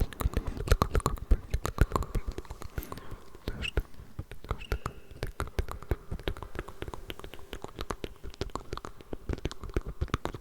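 Layered ASMR mouth sounds close to the microphone: a dense, rapid stream of wet mouth clicks and smacks, with faint unintelligible whispering underneath.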